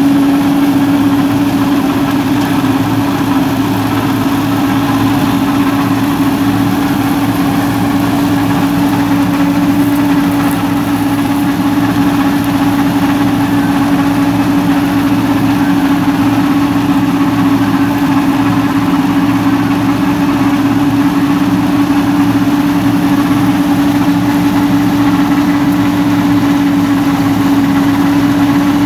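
Sonalika DI 750 tractor's four-cylinder diesel engine running steadily under load while driving a straw reaper, heard as an even, unchanging machine drone with a strong steady hum.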